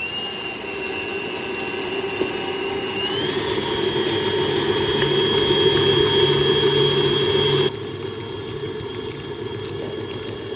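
Stand mixer with a wire whisk running at high speed, beating egg yolks as hot sugar syrup goes in. Its motor whine holds steady, steps up in pitch about three seconds in, and drops in level about two-thirds of the way through.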